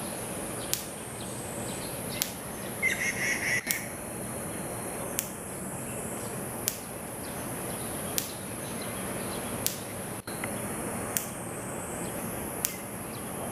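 Outdoor summer ambience: a steady high-pitched insect buzz, with sharp ticks about every second and a half and a short, rapid chattering call about three seconds in.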